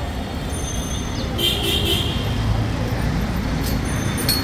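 Steady city road traffic rumble, with a brief high-pitched horn toot about a second and a half in.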